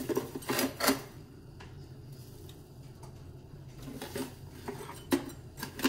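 A few scattered light clicks and knocks as kitchen utensils and a plastic container are handled beside a saucepan, over a low steady hum.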